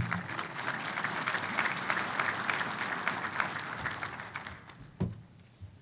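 Audience applauding, the clapping dying away about four and a half seconds in, followed by a single short knock.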